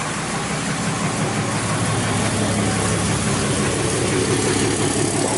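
Cummins 6.7-litre inline-six turbo diesel of a 2012 Ram 2500 idling steadily, heard at the rear of the truck, shortly after its first start following a parts reinstall.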